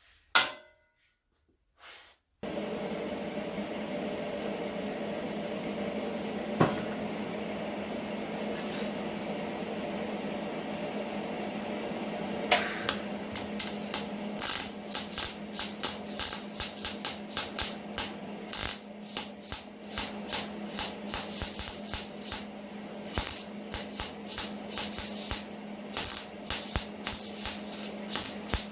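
MIG welding with a Hobart Handler welder: a steady arc hiss over a constant hum, turning about twelve seconds in into rapid, irregular crackling and popping of the arc.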